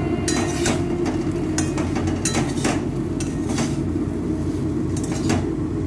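A spatula scraping and knocking against a kadhai while stir-frying drumstick and potato pieces, about seven sharp knocks and scrapes at irregular intervals.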